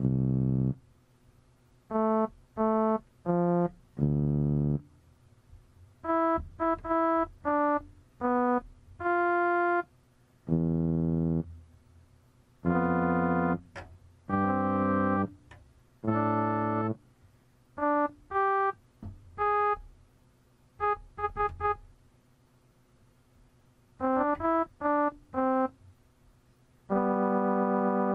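Electronic keyboard playing sparse, separate notes and chords, each held briefly and set apart by short silences, with a few quick runs of notes.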